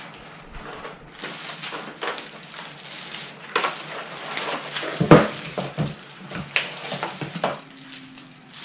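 Unboxing noise: a plastic bag crinkling and cardboard packaging being handled, with irregular rustling and a few knocks, the loudest about five seconds in.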